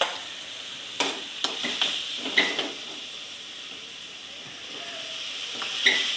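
Onion-tomato masala with freshly added chilli powder, turmeric and salt sizzling steadily in hot oil in a pan. A utensil scrapes and knocks against the pan as it is stirred, several times in the first couple of seconds and again near the end.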